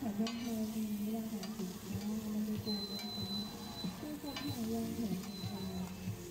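Roti frying in oil on a large flat griddle, sizzling steadily, with occasional light metal clicks and indistinct voices in the background.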